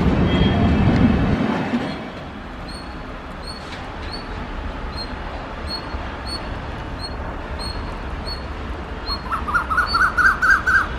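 The tail of a Rajdhani Express passenger train rushes past and fades within about two seconds. A low steady rumble is left, with a bird chirping about twice a second. Near the end comes a quick, louder run of chirps.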